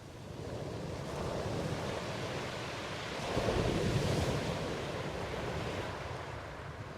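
Ocean waves washing in: a swell of surf builds to its loudest about three and a half seconds in, then ebbs away.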